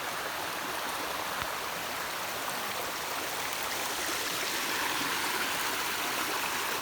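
Stream water flowing steadily over rocks, an even rushing hiss.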